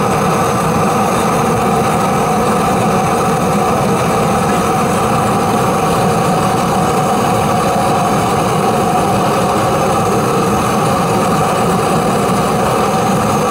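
Electric air blower forcing air through a pipe into a forge fire, running steadily at a constant pitch.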